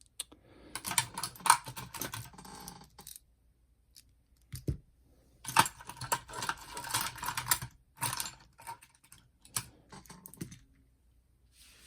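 Screwdriver and small parts clicking and rattling against a boombox's plastic cassette-deck chassis while its screws are being taken out. There are three runs of dense clicking a couple of seconds each, with a single dull knock between the first two.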